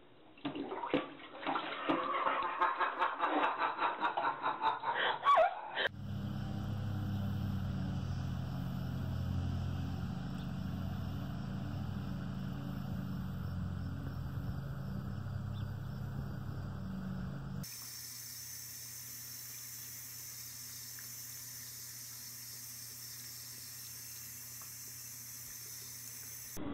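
A kitten splashing in toilet-bowl water in loud irregular bursts for about six seconds. Then, after a cut, a steady low hum. Then a thin stream of tap water running from a bathroom faucet as a steady hiss.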